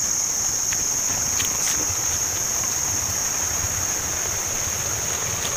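Steady, high-pitched insect chorus droning without a break from the surrounding vegetation.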